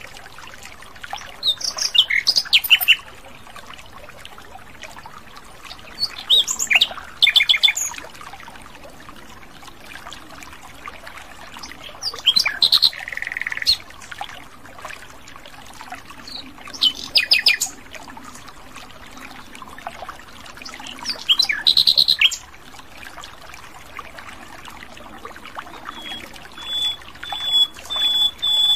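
Common nightingale singing short phrases of clear whistles and rapid trills, one about every five seconds with quiet gaps between. Near the end comes a run of repeated notes at one pitch that grows louder.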